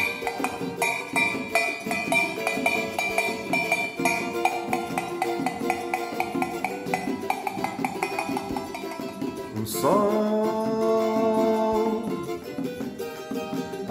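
Acoustic band playing an instrumental passage: acoustic guitars over a steady rhythm from a metal shaker and hand drum. About ten seconds in, a long sustained note comes in and is held for about two seconds.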